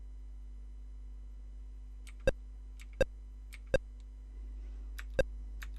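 Commodore VIC-20 key-press beeps through the TV speaker: five short pitched blips from about two seconds in, each just after a faint keyboard click, over a steady mains hum from the TV.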